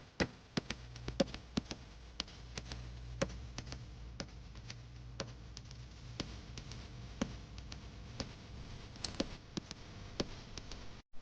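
A series of small, sharp clicks and taps, the loudest coming about once a second with fainter ones in between, over a faint low hum.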